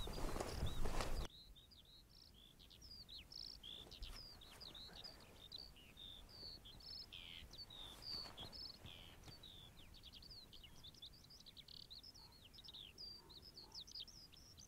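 Faint birdsong: a steady stream of short, high chirps and trills from small birds. About a second in, a louder rushing background noise cuts off suddenly and leaves the birds alone.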